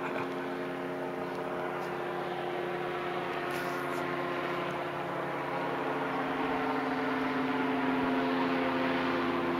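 Engine of a powered hang-glider trike droning overhead at a steady pitch, growing a little louder about halfway through as it comes closer.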